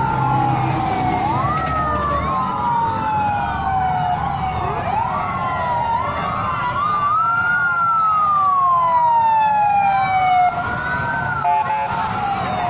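Several emergency-vehicle sirens wailing at once, their rising and falling tones overlapping, from a convoy of small fire-fighting vehicles driving past.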